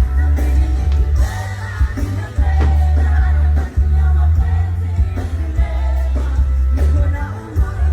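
Music with singing over a heavy, steady bass.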